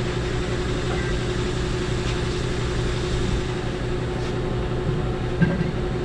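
Steady mechanical hum, like an engine running, with a light knock about five and a half seconds in.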